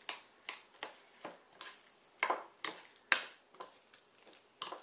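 A spoon clinking and scraping against a bowl while stirring a creamy mixture. The strokes come as irregular knocks, about two or three a second, with one sharper clack just past the middle.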